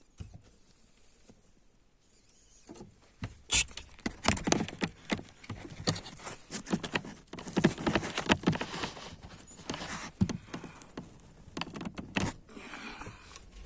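Dense rustling and scratching from a hen moving about in her nest just after laying, a rapid run of crackles and taps. It starts about three seconds in and dies down near the end.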